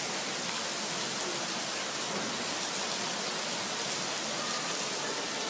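Heavy rain falling steadily on a street, a continuous even hiss.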